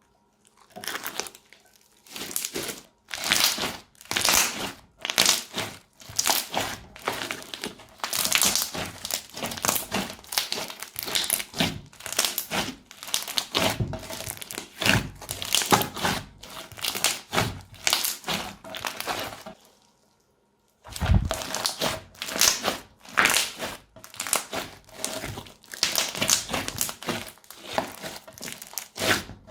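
Crunchy slime being squeezed and kneaded by hand, giving a rapid stream of crackling, crinkly crunches in repeated swells. It pauses for about a second roughly two-thirds of the way through, then starts again.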